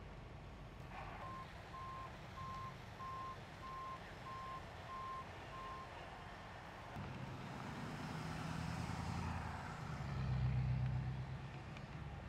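A truck's reversing alarm beeps at an even pace, about eight beeps a little over half a second apart, and stops about six seconds in. Then a heavy truck engine runs, growing louder to a peak near the end.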